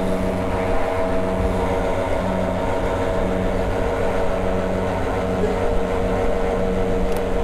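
Petrol pump dispenser running with a steady hum while fuel is pumped into a motorcycle's tank.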